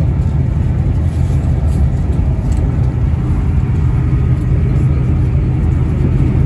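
Class 800 train running at speed, heard inside the passenger carriage: a steady low rumble of wheels on track and running gear.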